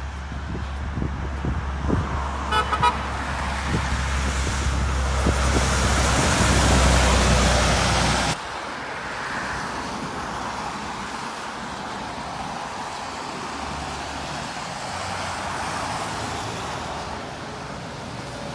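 A truck's engine rumbles as it draws closer, getting louder, with a short horn toot about two and a half seconds in. About eight seconds in the sound cuts off suddenly to quieter, steady traffic noise.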